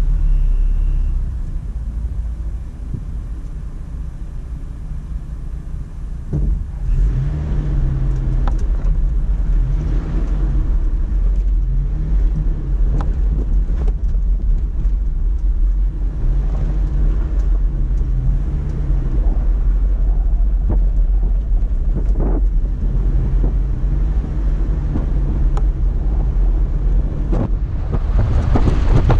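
Toyota FJ Cruiser's 4.0-litre V6 pulling through deep sand over a heavy low rumble, its pitch rising and falling with the throttle, with a few sharp knocks along the way. It runs quieter for a few seconds near the start, then louder from about seven seconds in.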